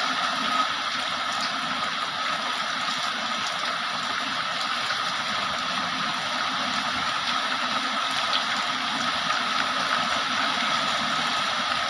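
Heavy rain pouring steadily, a dense even hiss with a few faint drop ticks.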